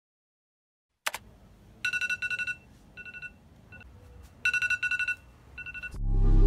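Trilling electronic ringtone-style tone in several short bursts of rapid pulses at a steady high pitch. About six seconds in, a hip-hop beat with heavy bass starts.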